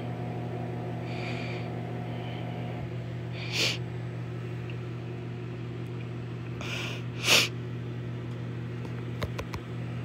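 Microwave oven running with a steady low hum while it cooks. Short breathy sniffs cut in about three and a half seconds in and twice around seven seconds, and a few light clicks come near the end.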